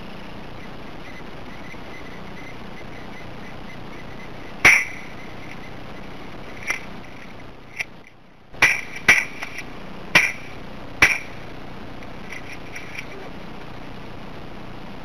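A series of about seven sharp bangs over some six seconds, the first one the loudest, with two close together about a second after a brief muffled dropout.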